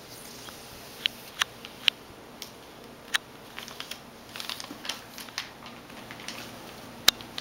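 A sheet of paper crackling and crinkling as a hand scratches and pushes it across carpet and a cat bats and pounces at it. The sound comes as a series of sharp, irregular crackles, thickest in the middle, with the loudest single snap near the end.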